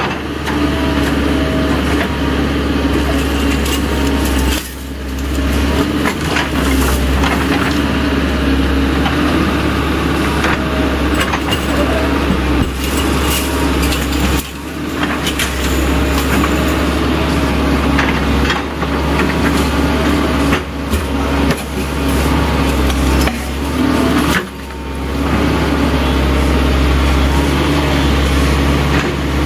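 Volvo 140-class excavator's diesel engine running steadily under hydraulic load, the sound dipping briefly three times. Through the middle stretch the chain-link fence it is dragging and rolling up rattles and scrapes.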